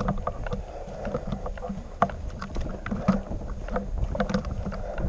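Footsteps crunching through snow with clothing and kit rustling, heard as an uneven run of small clicks and knocks over a low rumble.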